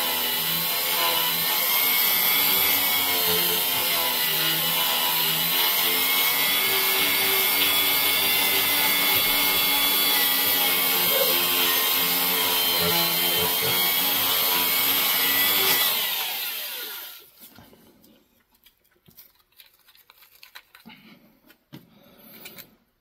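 Die grinder spinning a blue buffing wheel against the aluminum combustion chamber of a cylinder head, polishing out the last fine lines: a steady whine with hiss that wavers as the buff is pressed in and moved around. About sixteen seconds in the tool is let off and winds down with falling pitch, leaving only faint handling sounds.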